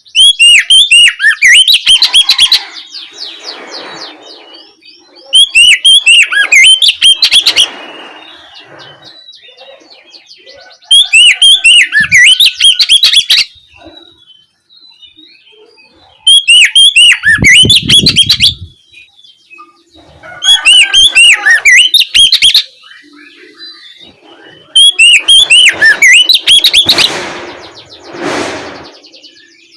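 Oriental magpie-robin (kacer) singing its loud open song: bursts of rapid repeated whistled and scratchy notes about two and a half seconds long, coming every four to five seconds, with quieter notes between.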